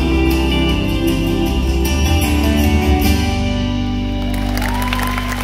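Two acoustic guitars strumming the closing chords of a live gospel song, the last chord ringing out about three seconds in. Audience applause starts near the end.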